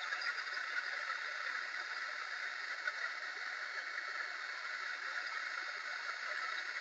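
Heat gun running steadily, its fan blowing a constant rush of hot air onto a solder seal wire connector to melt the solder ring and shrink the tubing.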